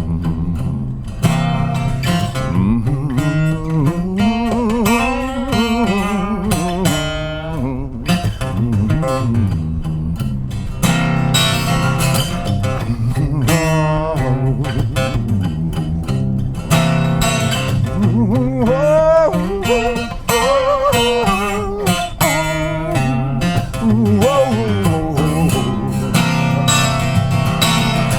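Instrumental break of a song played on six-string guitar: a lead melody with bending, sliding notes over a steady picked accompaniment.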